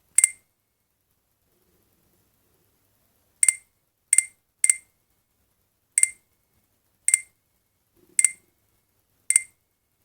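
Alcatel OT-810 mobile phone's key-press beeps: eight short, high-pitched beeps at uneven intervals, one at the start and then a run of seven beginning about three and a half seconds in, as its keys are pressed.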